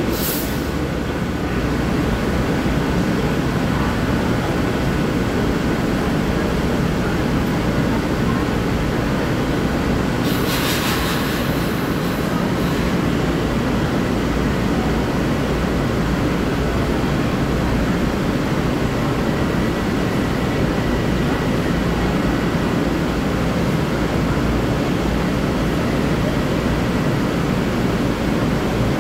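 Long Island Rail Road M3 electric multiple-unit train standing at the platform with its doors open, its onboard equipment running with a steady, loud drone. A brief hiss comes about ten seconds in.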